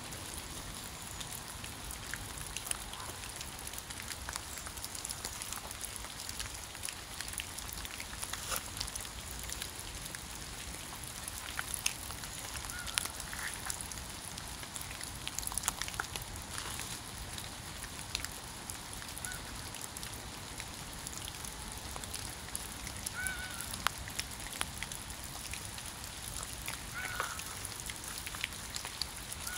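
Steady autumn rain hissing, with many small drops ticking, and a handful of short waterfowl calls from ducks or geese scattered through the second half.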